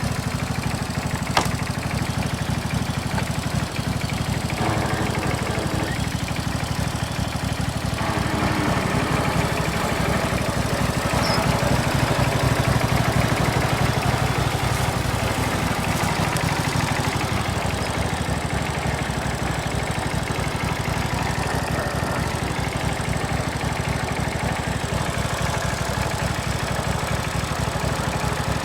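A 16 horsepower Briggs & Stratton V-twin engine on a John Deere lawn tractor running smoothly and steadily, a little louder for several seconds around the middle.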